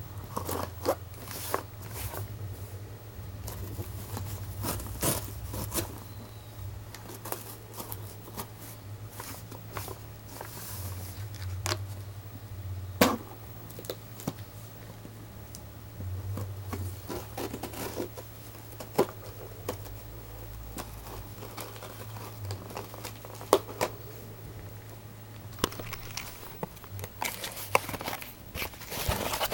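A cardboard shipping package being opened and handled: irregular tearing, crinkling and clicks of cardboard and packaging, busiest near the end.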